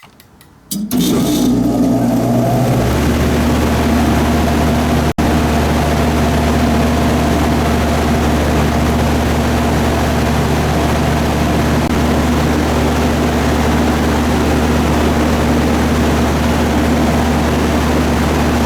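A 2008 Goodman 4-ton package heat pump starting in heat mode, heard from on top of the cabinet: it kicks on with a few clicks under a second in, then runs loud and steady, with a deeper hum joining about three seconds in.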